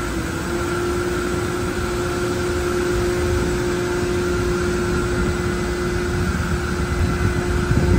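Steady drone of machinery running on an airport apron, with a steady humming tone, growing slightly louder.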